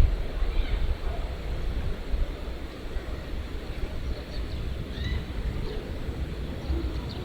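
Wind buffeting the microphone in low, uneven gusts over the steady rush of a mountain stream, with a few faint, short high chirps.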